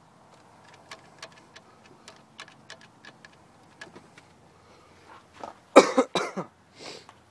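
A string of light clicks and taps, then a person coughing loudly about six seconds in.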